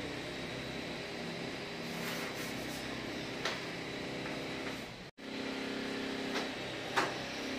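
Steady electric motor hum with a few faint clicks; it drops out for an instant about five seconds in.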